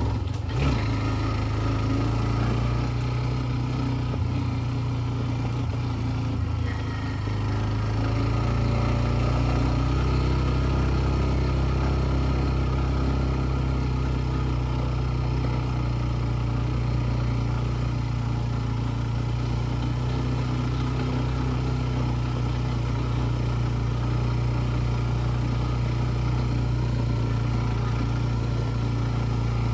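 A TVS Ntorq 125 scooter's single-cylinder engine running steadily, with a short knock just under a second in.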